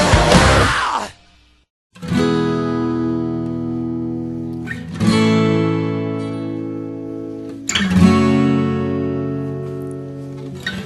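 Loud, dense band music fades out about a second in, followed by a brief silence. An acoustic guitar then strums three chords, about three seconds apart, each left to ring out and fade.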